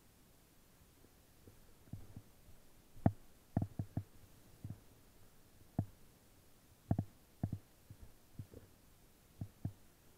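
Irregular soft low thumps and knocks, about fifteen, unevenly spaced, with the loudest about three seconds in.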